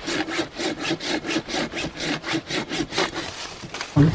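Hand saw cutting through a dead branch for firewood, in quick, even back-and-forth strokes, about five a second.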